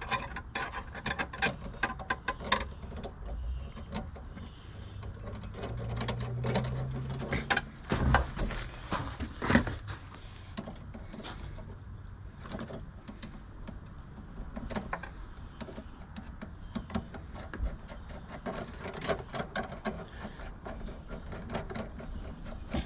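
Hands working a metal aerial mounting bracket and screw into place: scattered clicks, taps and knocks of small metal parts and a screwdriver, with a brief low hum partway through.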